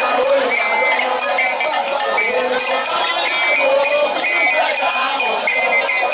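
A crowd chanting and shouting together, with a short, high, ringing note repeating roughly once a second over the voices.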